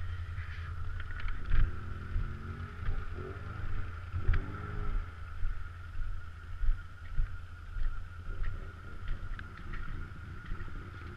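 ATV engine running low and steady, with a steady whine above the rumble and short rises in pitch about two to five seconds in. Frequent knocks and thuds from the machine jolting over the rough, muddy trail.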